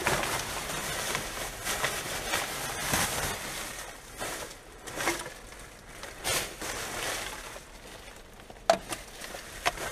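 Black plastic rubbish bags rustling and crinkling in irregular bursts as they are handled and rummaged through, with a sharp knock near the end.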